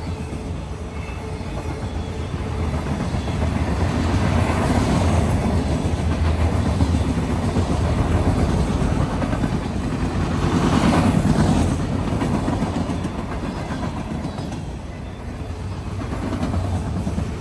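Freight train of open-top hopper cars rolling past at trackside: a steady rumble of steel wheels on rail, swelling louder through the middle.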